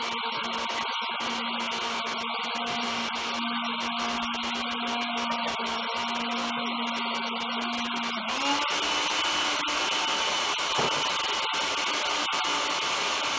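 Electric countertop blender running steadily, blending boiled passion fruit with its peel and seeds in water. About eight seconds in, the motor's pitch steps up a little and stays higher.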